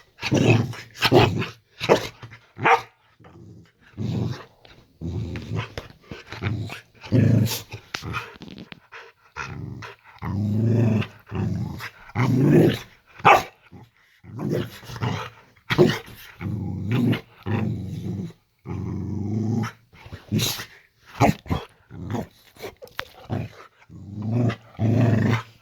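Boxer dog growling and barking in a long run of bursts, some drawn-out growls of about a second and others short, sharp barks, with brief pauses between.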